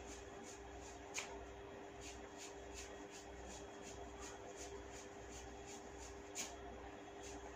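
Hair cracking on the scalp: tufts of hair gripped and tugged to make a steady rhythm of soft crackles, about two or three a second, with two sharper snaps, one about a second in and one near the end.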